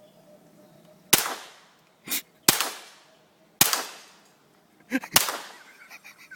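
Four shots from a .22 rimfire mini rifle, about a second apart, each with a ringing echo tail. Shorter, fainter sharp knocks fall between some of the shots.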